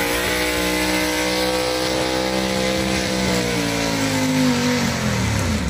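Engine of a pulling tractor running hard at high revs, a loud steady drone that drops in pitch over the last two seconds as the engine slows.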